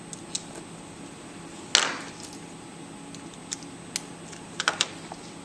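Scattered clicks and light knocks of batteries and their connectors being handled and fitted to a small receiver circuit, the loudest about two seconds in, with a faint steady hum underneath.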